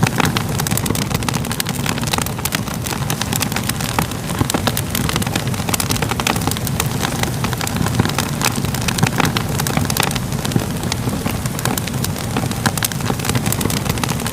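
Fire crackling steadily: many small, sharp pops and crackles over a low, even rush of flames.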